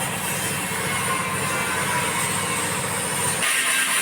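A motor or engine running with a fast, even throb, cutting off about three and a half seconds in.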